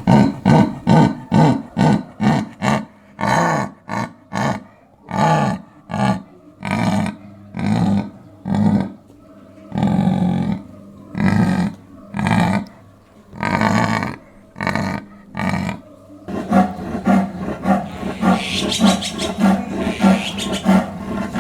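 A big cat roaring in a long series of deep grunting calls, quick at first, then slower and longer in the middle, then quicker again near the end.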